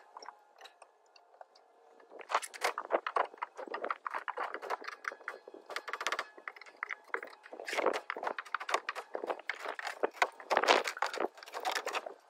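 Old weathered wooden deck boards being pried off the joists with a crowbar: a dense run of cracking, crunching and scraping wood, starting about two seconds in.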